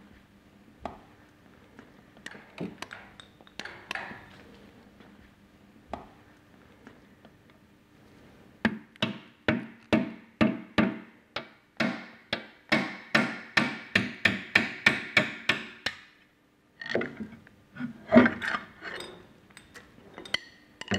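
Hammer tapping a screwdriver driven into the joint between an electric motor and the pump's flange, to work the motor loose from the pump: a run of sharp metallic taps, about three a second, for several seconds in the middle, with a few separate knocks and clinks of tools before and after.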